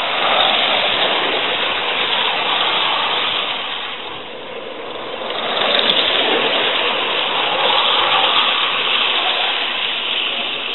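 Gauge 1 live steam model locomotive passing close with its train, giving a steady hissing rush of steam exhaust and wheels rolling on the rails. The noise swells twice, dipping briefly about four seconds in.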